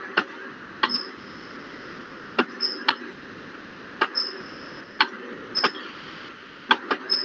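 About a dozen irregular, sharp clicks of a computer mouse as handwriting is drawn stroke by stroke on a digital whiteboard, over a steady background hiss.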